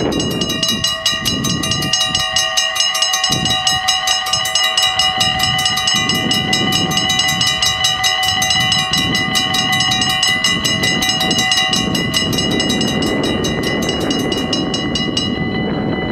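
Level-crossing warning bells at a Dutch AHOB crossing starting up and ringing rapidly, the crossing's warning that a train is coming, over wind noise on the microphone. About fifteen seconds in the rapid striking stops, once the barriers are down, leaving a fainter ringing tone.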